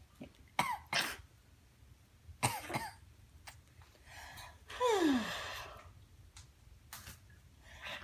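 A pet coughing: a few short coughs spread out, the longest about five seconds in.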